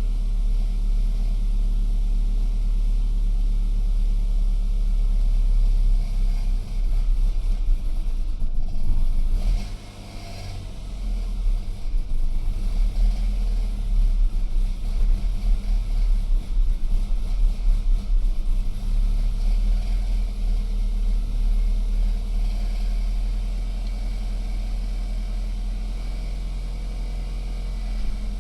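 BMW N46N 2.0-litre four-cylinder engine idling unevenly right after a cold start in cool weather, its level wavering and dipping near the middle before settling. This is a rough cold idle with no fault code that clears once the engine warms, and new VANOS solenoids, spark plugs and ignition coils have not cured it.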